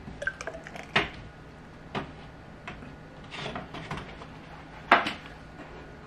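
Kitchen handling noises: a few sharp knocks and clatters of dishes, a cup or a cupboard, the loudest near the end, over a faint steady hum.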